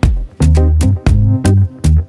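Background music with a heavy bass line and a strong, regular beat.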